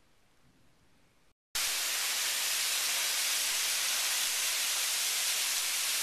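Thin waterfall falling onto rocks: a loud, steady hiss of falling water and spray that begins abruptly about a second and a half in, after a short faint stretch.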